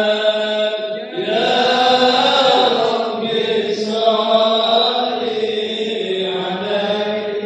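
Islamic devotional chanting, voices holding long drawn-out melodic phrases that glide up and down.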